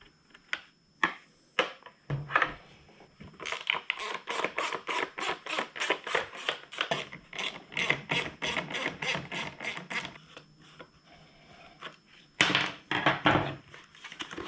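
Hand tool clicking rapidly and evenly, about four to five clicks a second for several seconds, as Torx screws are backed out of a motorcycle's plastic side panel, with a few single clicks before and a short clatter of handled parts near the end.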